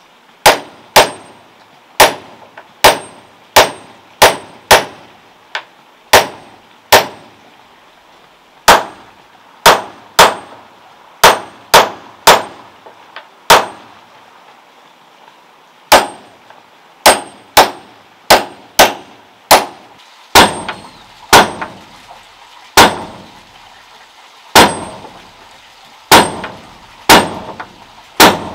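A hammer striking nails into wood: sharp ringing clangs at an uneven pace of one to two a second, with a short pause about halfway through.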